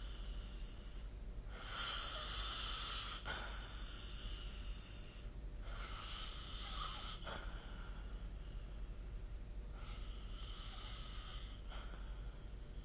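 A sleeping person snoring, three slow breaths about four seconds apart, each lasting a second and a half to two seconds.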